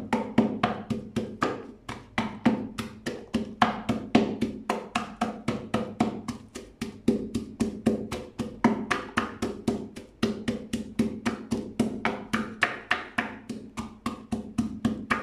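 Garlic cloves being pounded in a wooden mortar with a pestle: a steady run of quick wooden knocks, about five a second.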